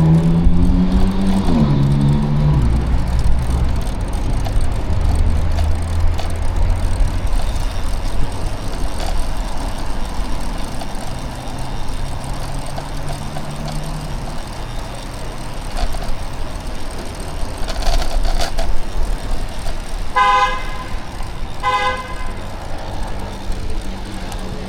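City street traffic heard from a bicycle: motor vehicles running past with a steady low rumble. Near the end a vehicle horn toots twice, two short blasts about a second and a half apart.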